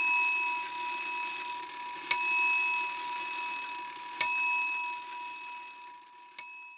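A bell struck about every two seconds, each stroke ringing out and slowly fading. The last stroke is softer and is cut off near the end.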